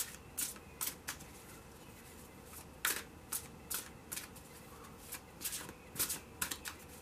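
Tarot cards being shuffled and handled by hand: a string of short, soft card snaps at irregular spacing.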